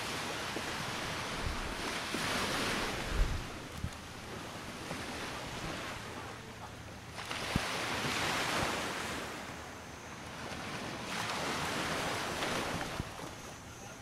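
Small sea waves washing onto a beach, swelling and fading three times, with wind on the microphone and a few short low bumps, the sharpest about three seconds in.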